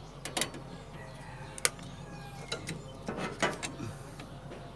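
Irregular metal clicks and clinks as a handbrake cable end and pliers are worked against a drum-brake backing plate, about eight sharp clicks spread unevenly, over a low steady hum.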